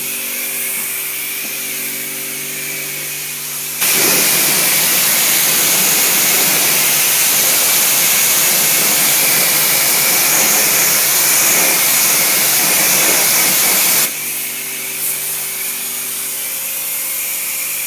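Pressure washer on its highest-pressure setting: the machine hums steadily with the trigger released, then about four seconds in a loud hiss of high-pressure water spraying onto a car wheel rim runs for about ten seconds before the spray cuts off and the steady hum returns.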